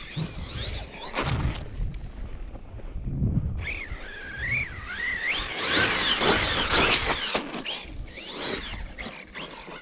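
Brushless electric motor of a 6S ARRMA Siren 1/10 4WD RC truck whining as it is driven, its pitch rising and falling with the throttle and loudest about six to seven seconds in, over a low rumble.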